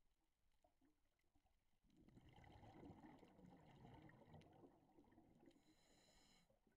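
A scuba diver's exhaled breath bubbling out of the regulator, faint and muffled through the camera's underwater housing. It starts about two seconds in and stops near the end, against faint scattered clicks.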